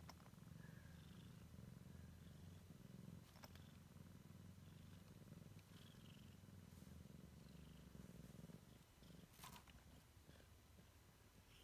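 Siamese cat purring steadily, a low, soft, continuous purr that trails off near the end. Two faint clicks come through, one early and one after the purr has faded.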